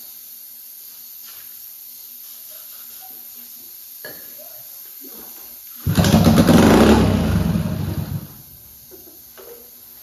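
1983 Honda ATC110's small four-stroke single, pull-started with a makeshift strap, pops off about six seconds in and runs for about two seconds before dying. It is running only on ether sprayed down the intake, with the carburetor off.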